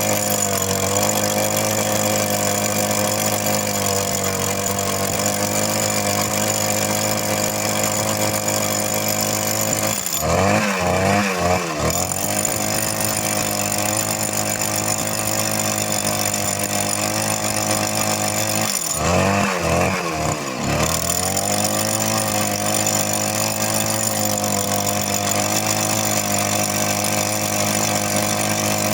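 Compact two-stroke petrol rock drill running steadily while drilling. Twice, about a third and two thirds of the way through, the engine speed dips briefly and climbs back up.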